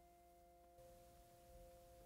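Near silence: faint room tone with a soft, steady ringing tone held throughout.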